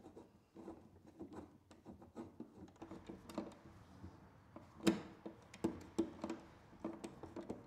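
Hand screwdriver driving screws into a metal electrical box and its cover: a run of faint, irregular clicks and short scrapes, with a sharper click about five seconds in.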